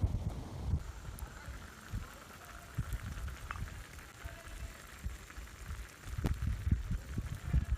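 Abgoosht simmering in a stone pot over a campfire, bubbling with scattered small crackles and pops under a low uneven rumble.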